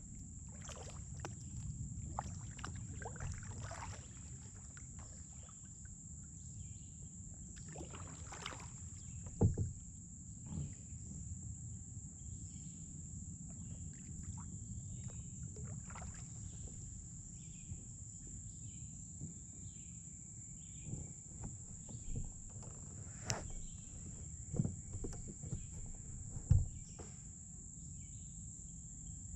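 Kayak paddling: the paddle blades dip and splash in the river with each stroke, over a steady low water-and-hull rush. A few sharp knocks stand out, the loudest about ten seconds in and again near the end.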